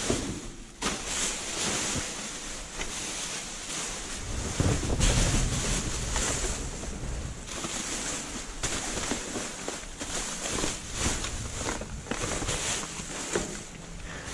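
Plastic garbage bags rustling and crinkling as they are handled and pulled around, in a steady run of crackles, with wind rumbling on the microphone.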